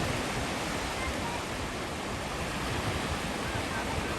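Sea waves washing on the shore: a steady, unbroken rush of surf with a low rumble underneath.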